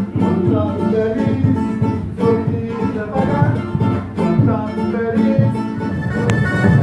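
Music led by acoustic guitar, plucked and strummed at a steady rhythm.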